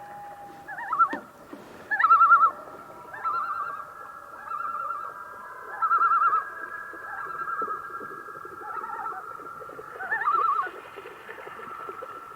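Several common loons calling together: long, drawn-out wails overlap while loud, quavering, wavering phrases break in again and again over them.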